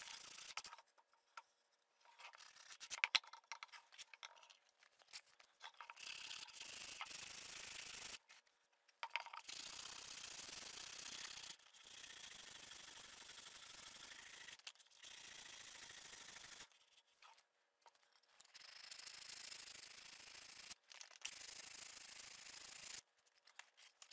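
Hand sanding of a wooden block with sandpaper wrapped around a paint stick: a dry, hissing rub that goes in stretches of a few seconds, stopping and starting again several times.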